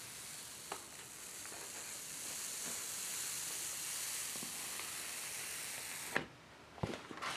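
Printing paper being peeled slowly off a freshly inked woodcut block, the tacky ink letting go with a steady fine crackling hiss that grows a little louder, then stops abruptly about six seconds in. A few faint clicks.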